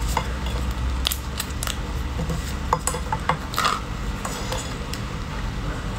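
A whole crab's top shell being pried off by gloved hands: a string of sharp cracks and wet clicks, busiest in the middle, as the shell separates from the body.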